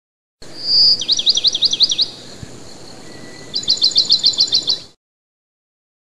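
A songbird singing: a short held whistle, then a run of quick down-and-up sweeping notes, a pause, and a fast trill of about eight notes a second that cuts off abruptly.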